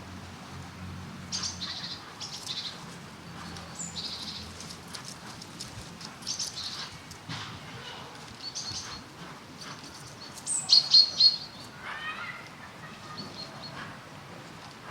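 Birds chirping and calling, short bright phrases repeating every second or so, with a louder run of four sharp calls about eleven seconds in.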